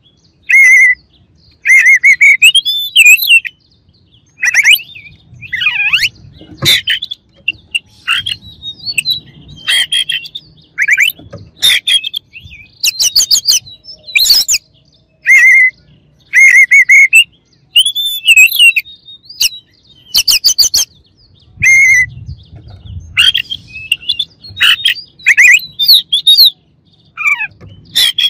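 Oriental magpie-robin (kacer) singing loudly: short, varied phrases of whistles that rise and fall, mixed with harsh, scratchy notes, coming in bursts about a second apart.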